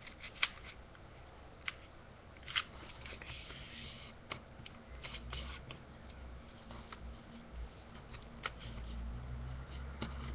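A square sheet of paper being folded and creased by hand into a triangle, as its diagonals are pressed in. Soft rustling with short sharp crackles of the paper, the loudest two in the first three seconds.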